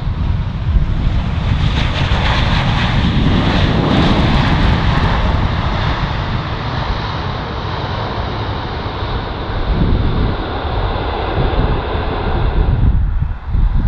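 Airbus A380's four Rolls-Royce Trent 900 jet engines roaring on the landing rollout with spoilers raised, the noise swelling over the first few seconds, then easing off as the airliner slows. It drops away abruptly near the end.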